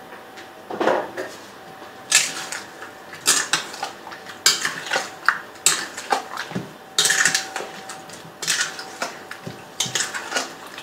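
A spatula scraping and knocking against a stainless steel mixing bowl as cream is stirred through chopped fruit, in irregular strokes about once or twice a second.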